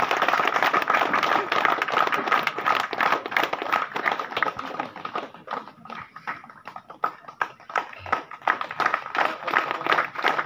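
A crowd clapping by hand, many irregular claps that thin out for a few seconds midway and pick up again near the end, over a steady tone.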